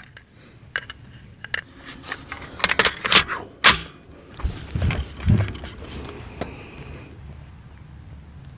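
Cartridges clicking as they are pressed one by one into an AR-15's 20-round magazine, then two sharp metallic clacks a little after three seconds as the rifle is loaded, followed by a few dull knocks of the rifle being settled on the bench.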